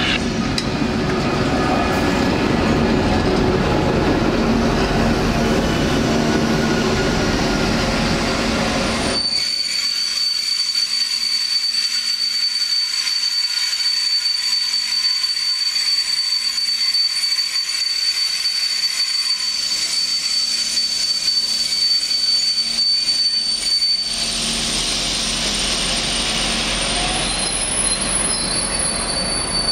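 Night-train coaches rolling slowly past at close range during shunting, with a loud even rolling rush. About a third of the way in this gives way to a long, steady, high-pitched wheel squeal from a coach portion moved by an ÖBB class 2068 diesel shunter. Near the end the squeal is briefly covered by rushing noise and then comes back.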